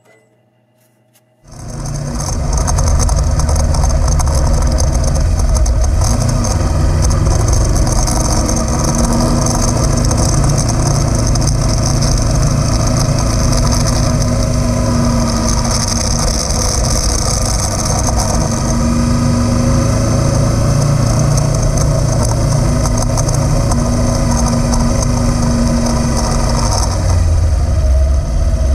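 Kawasaki Versys-X 300's parallel-twin engine running steadily as the motorcycle rides along a dirt trail, mixed with wind and road noise. It begins abruptly about a second and a half in.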